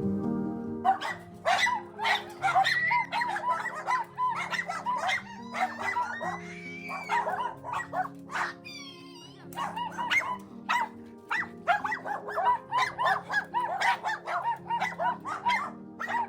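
Dogs yipping and barking rapidly in high-pitched, overlapping bursts, with one drawn-out whine near the middle. Soft background music plays underneath.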